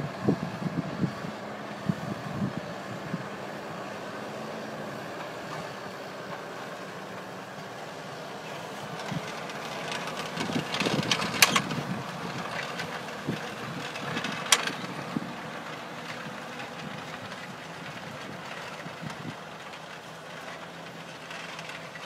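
JCB Fastrac 8250 tractor's diesel engine running steadily under load as it pulls a six-furrow mounted plough. A few knocks come near the start, and two sharp clacks stand out about halfway through.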